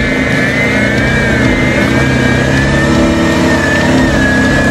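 Jeep Wrangler's engine running under load as it crawls up a rocky dirt trail, its pitch shifting with the throttle. A wavering high whine runs over it.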